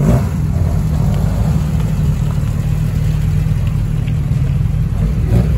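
A car engine running steadily with a loud, low rumble.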